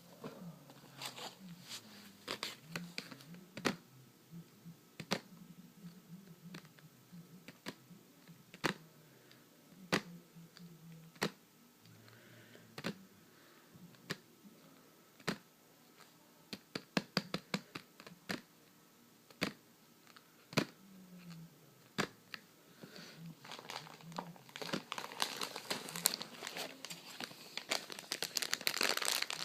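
Close-up crinkling and handling noise: scattered sharp clicks and taps, building into dense, louder crinkling near the end.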